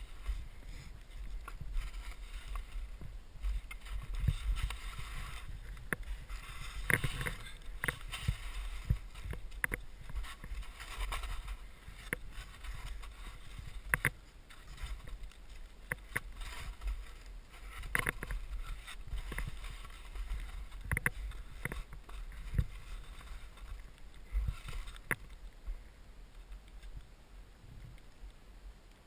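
Skis swishing and ploughing through deep powder snow in repeated turns, the hiss swelling and fading, with sharp knocks every few seconds from pole plants and snow or branches striking the gear.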